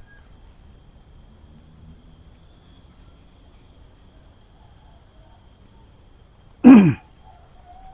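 Steady high-pitched insect drone, with one short, loud vocal sound dropping in pitch about seven seconds in.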